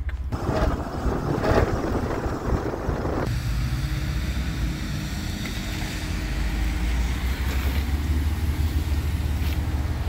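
A vehicle running: a loud rushing noise for about the first three seconds stops abruptly, then a steady low engine rumble follows.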